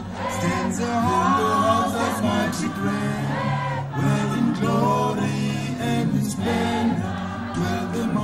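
A choir singing, several voices together in harmony.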